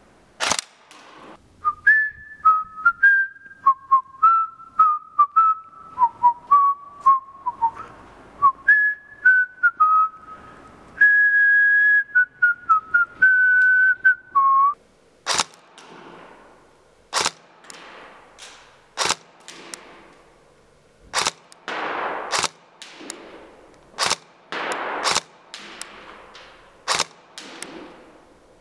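A person whistles a short tune for about the first half. Then a Tokyo Marui AK74MN airsoft gun fires single sharp shots, roughly one every one to two seconds, each followed by a brief rattle.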